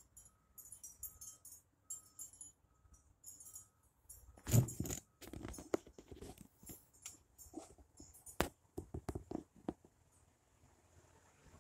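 A handheld phone being moved and repositioned: a loud bump about four and a half seconds in, then scattered clicks and knocks. Before the bump there is faint, high-pitched jingling with a soft, regular pip about twice a second.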